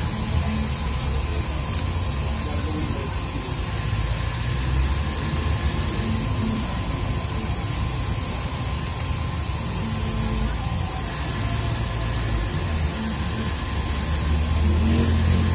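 Manual engraving machine's spindle motor running steadily while its cutter engraves letters into a black-and-white laminate plastic tag plate: a continuous low hum under a constant hiss, swelling slightly near the end.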